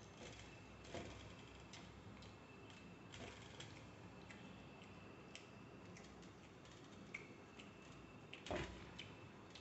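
Faint, irregular clicks and taps of fingers picking food off a stainless steel plate, with one louder knock about 8.5 seconds in.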